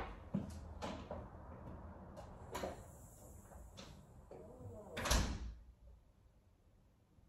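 Knocks and clicks of an interior door being handled, with a louder thud about five seconds in.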